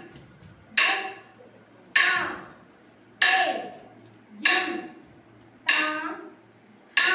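A slow, even dance beat kept for classical Indian dance practice: a sharp strike with a called rhythm syllable about every second and a quarter, each ringing out and fading before the next.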